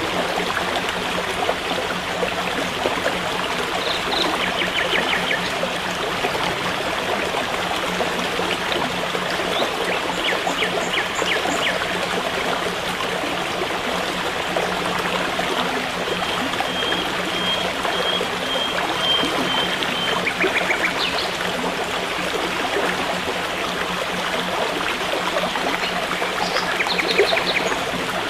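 A forest stream trickling and babbling steadily. Every few seconds there are short runs of bird chirps, and a thin high trill runs through the middle.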